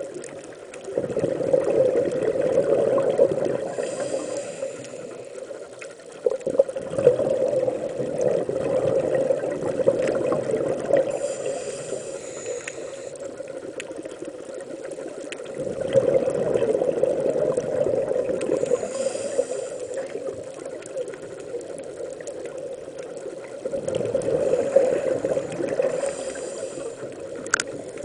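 Scuba diver breathing through a regulator underwater: four swells of exhaled bubbles rushing and gurgling, about eight seconds apart, over a steady underwater hiss.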